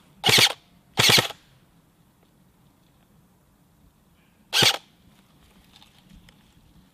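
Airsoft electric gun (AEG) firing three short full-auto bursts: two in quick succession near the start, and a third a few seconds later.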